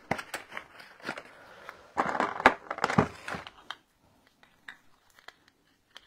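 Plastic packaging crinkling and rustling in a run of sharp little crackles, loudest and busiest about two to three and a half seconds in, then dying away to a few faint ticks.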